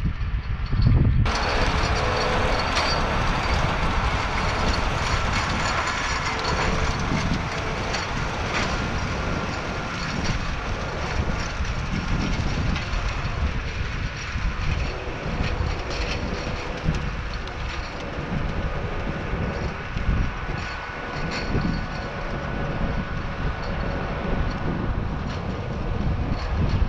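Steady mechanical drone of a New Holland T4.100 tractor pulling a five-shank chisel plow, mixed with wind buffeting the microphone. About a second in the sound changes suddenly and becomes fuller and brighter.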